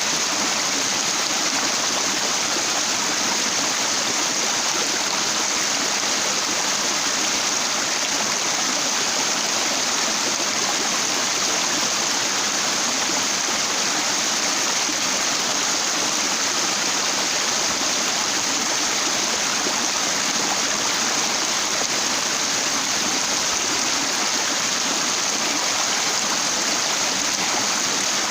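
Water rushing steadily over and around rocks at a wide flat boulder, an even, unbroken rush with no change in strength.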